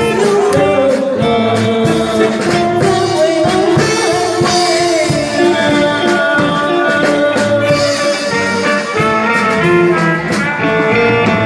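A sung song with instrumental backing: a voice holding long notes over guitar and a steady drum beat.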